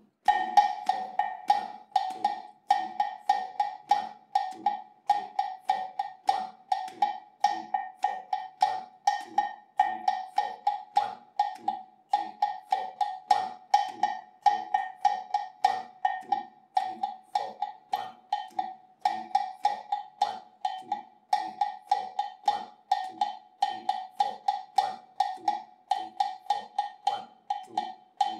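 A hand bell struck with a stick, playing the Kpatsa/Tokpe bell pattern, a repeating timeline rhythm of quick, sharp strokes on one ringing pitch that cycles about every two seconds.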